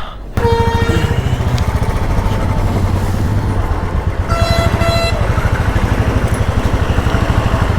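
Royal Enfield motorcycle engine running under way with a steady, even exhaust pulse. About halfway through, a horn gives two short beeps.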